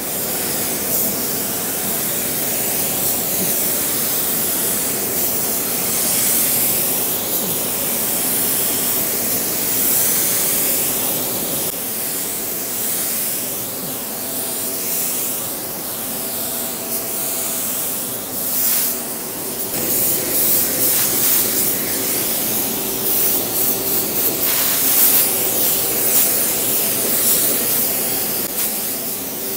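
Sagola 4600 Xtreme HVLP spray gun hissing as it sprays clear coat, the air hiss swelling and easing with each pass and rising and dropping more sharply in the second half. Underneath runs a steady hum from the spray booth's blower.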